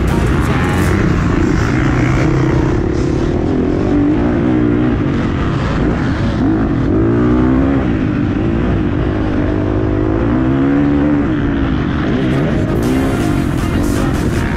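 Motocross bike engine heard from a camera mounted on the bike, its pitch climbing and dropping several times as the throttle is opened and shut between corners and straights.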